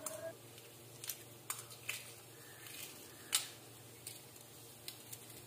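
Hard-boiled eggshells being cracked and peeled by hand: faint scattered clicks and crackles, the sharpest about three seconds in, over a low steady hum.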